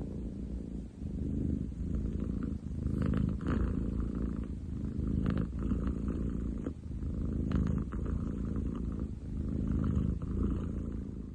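A munchkin cat purring very loudly and deeply, the rumble swelling and easing with each breath in and out, roughly every second and a half.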